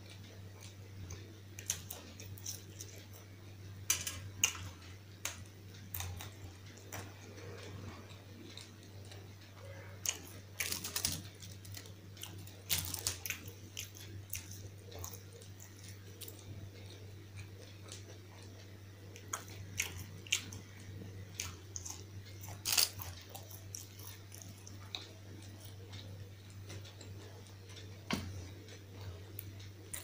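Close-up eating sounds of fried pakoda fritters being bitten and chewed by hand, with irregular crisp bites and wet mouth clicks.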